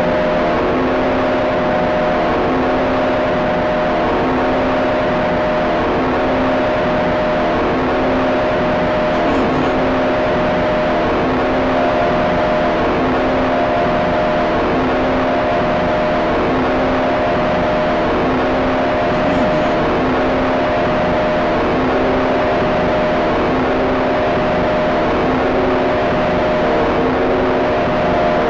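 Industrial machinery sound effect: a steady, loud mechanical drone, a dense rushing noise with several steady humming tones in it, unchanging throughout.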